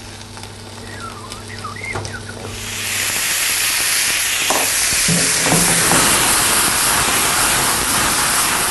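Sizzling of food frying in a hot pan. It is low at first, then swells about three seconds in to a loud, steady hiss that holds to the end.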